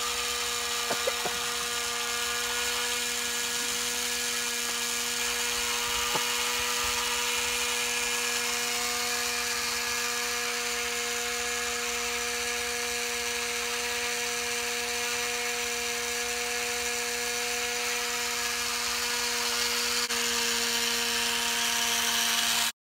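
Small electric motor and gearbox of a model two-wheel tractor's winch, whining steadily as it reels in the line, with a few light clicks early on. The pitch steps up slightly and the sound grows a little louder near the end before it cuts off suddenly.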